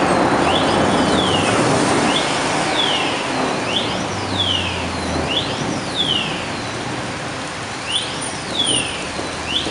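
A siren sweeping up and down in pitch, about once a second, over a steady wash of rain and traffic noise from a wet street.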